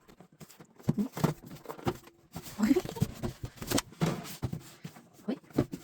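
A headphone box being handled and opened: irregular clicks, knocks and scraping rustles of the packaging.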